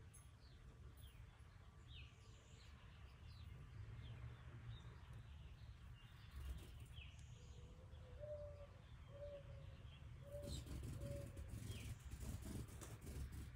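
Faint bird chirps, many short falling calls, over a low rumble. About two-thirds of the way through there is a run of five short low notes, and near the end a spell of crackling.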